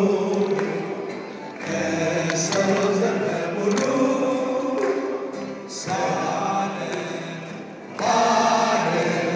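A crowd of voices singing a song together in phrases, with short breaths between lines, and people clapping along.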